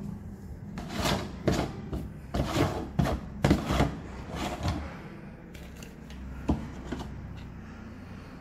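Red plastic screw lid of a sprayer's tank being twisted off by hand: a series of rasping plastic-on-plastic turns, then a couple of light clicks as it comes free.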